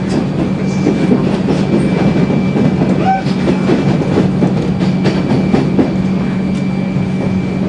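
Passenger train in motion: a steady low hum with a faint steady high whine, and frequent clicks and rattles from the wheels and carriage.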